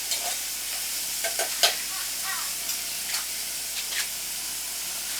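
Dry fish, onion, pepper and locust beans frying in oil in a pot, a steady sizzle, while a spoon stirs them with several sharp scrapes and knocks against the pot. The loudest knock comes about a second and a half in.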